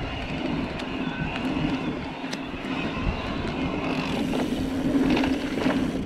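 Trek Rail electric mountain bike ridden along a hard-pack dirt trail: a steady drone with tyre noise, slightly louder a few seconds in, and scattered clicks and rattles from the bike over the ground.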